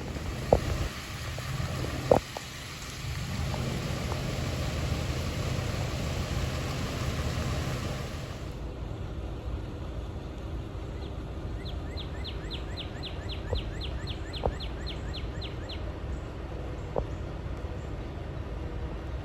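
Outdoor storm-area ambience: a steady rushing noise cuts off abruptly after about eight seconds to a quieter scene, with a few sharp clicks. A rapid run of high chirps, about four a second, sounds for some four seconds near the middle of that quieter part.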